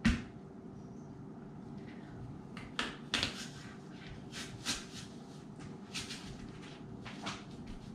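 Apple corer-slicer being pushed down through a whole apple on a plastic cutting board: a sharp knock at the start, then scattered crunches and cracks as the blades force through the firm apple.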